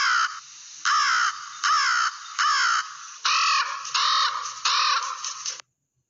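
Crow cawing: a run of about eight loud caws a little under a second apart, stopping about five and a half seconds in.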